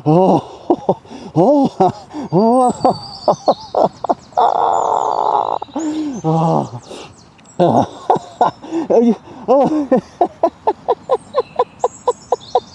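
Animal calls: many short hooting calls, each rising and falling in pitch, coming faster toward the end, with thinner high bird chirps above them and a short stretch of hissing noise about four seconds in.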